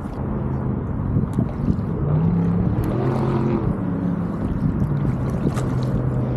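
A boat's motor running steadily on the water, its pitch shifting a few times, with light scattered splashes.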